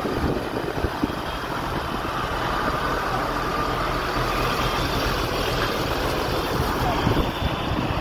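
Steady vehicle engine and road noise, a low rumble without any single clear event.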